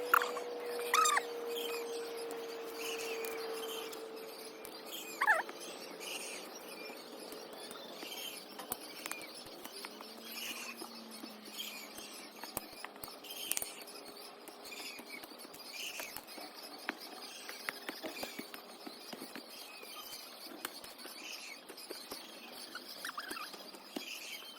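Birds chirping: many short high peeps, with a few longer falling calls, one about a second in and one about five seconds in.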